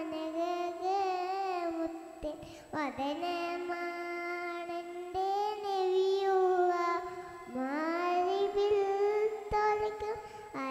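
A young girl singing solo into a microphone with no instrumental accompaniment, in long held notes that waver and slide in pitch, with a few short breaks for breath.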